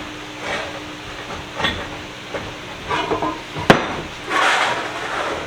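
Metal parts of a Hollands bench vise being handled during disassembly: light knocks and rustling, one sharp metallic knock about three and a half seconds in, then a short scraping rush.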